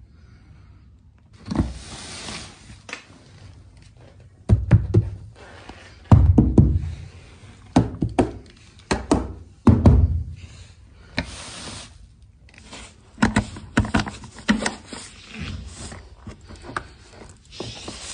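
Irregular thumps, knocks and clicks from the plastic shell and lid of a Givi B45+ motorcycle top case being handled, with short stretches of plastic wrap rustling.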